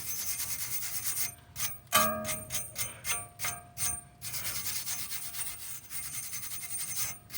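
Rapid back-and-forth hand scrubbing on the bare metal hub face of a rear wheel hub, cleaning its mating surface, in several runs of strokes with short pauses. A brief metallic clink rings out about two seconds in.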